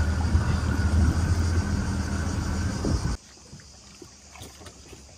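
Boat engine running with a steady low hum, stopping abruptly about three seconds in. After it, only faint scattered clicks remain.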